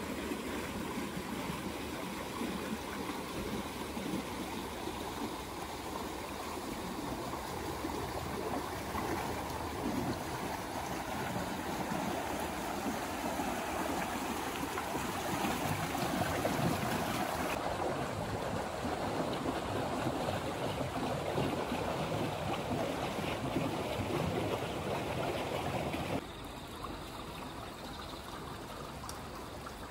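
Running water rushing steadily, like a stream or a channel. The sound changes abruptly twice, and it is quieter over the last few seconds.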